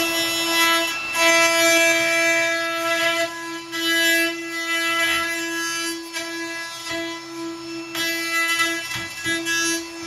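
Cordless brushless compact router running at full speed with a steady high whine, its bit cutting the latch-plate mortise in a wooden door edge through a latch mortising template. The level wavers as the bit bites into the wood.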